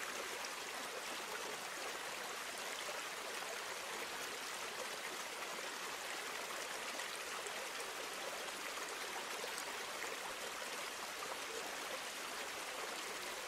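Steady rushing of running water, like a small stream, at an even level with no other events.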